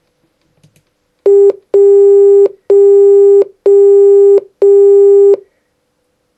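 Morse code sent as a steady beeping tone: one short beep followed by four long ones, dot-dash-dash-dash-dash, which is the digit 1.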